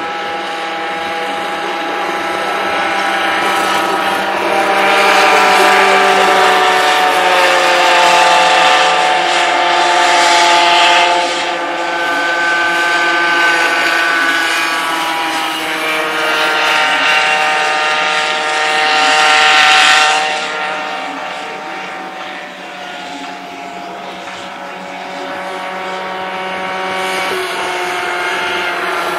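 Several small 50 cc two-stroke kart engines racing round the circuit, their high whines overlapping and rising and falling in pitch as the karts accelerate and brake. The sound swells as karts pass closest, from about five to eleven seconds in and again around twenty seconds, then eases off.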